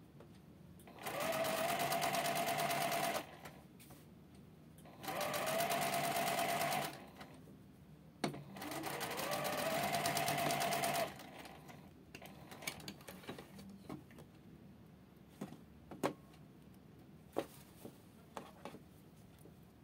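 Electric sewing machine stitching thin silk in three short runs, each speeding up over the first second to a steady whir and stopping after two to three seconds. Near the end come a few sharp clicks and snips of scissors cutting the thread.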